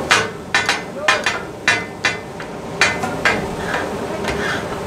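Metal spatulas clanking against a large iron tawa griddle: about six sharp, ringing strikes at irregular intervals over the hiss of food steaming on the hot griddle.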